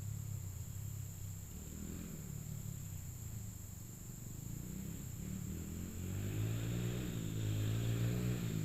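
Honda CRF100F's small single-cylinder four-stroke engine running through an aftermarket exhaust end cap. It gets louder about six seconds in, its pitch wavering.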